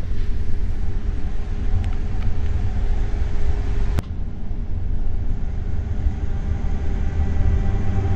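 Steady low rumble of a moving train, with a sharp click and a brief dip in level about halfway through.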